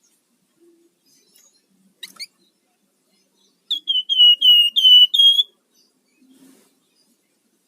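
Javan fulvetta (flamboyan) calling: a quick double chirp about two seconds in, then a loud run of six clear whistled notes, each dropping slightly in pitch.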